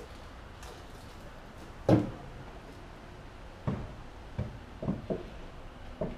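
Knocks and clunks of a large tractor wheel being rocked and pushed into place on its front hub: one loud knock about two seconds in, then several lighter ones later on.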